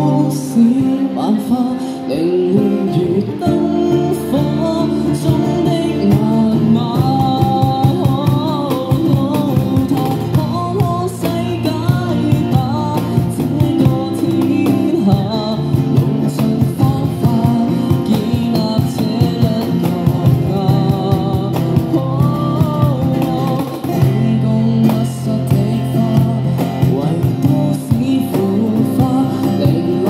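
A male voice singing a slow pop song through a microphone and small amplifier, accompanied by a strummed guitar.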